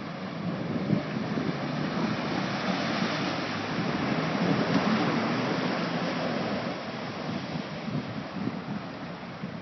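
Jeep wading through a creek: a steady rush of splashing water around the vehicle, swelling in the middle, with the engine running underneath.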